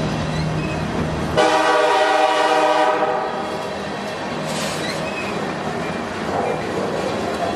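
A CSX SD70MAC diesel-electric locomotive running in dynamic braking, holding a heavy freight train back on a downgrade. About a second and a half in, its air horn sounds one loud blast of about a second and a half. After the horn, the rumble of the locomotive and the passing cars on the rails continues.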